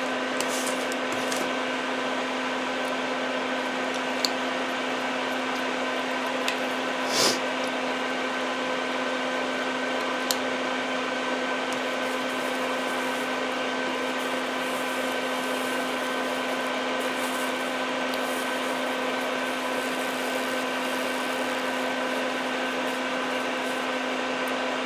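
Small electric fan running with a steady hum and whine over soldering of a stained-glass panel. A few faint ticks, and one brief hiss about seven seconds in.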